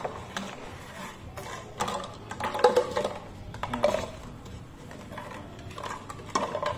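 Plastic water bottle being gripped, tipped and knocked on a wooden table, with cashews rattling inside it: a run of irregular clicks, taps and clatters.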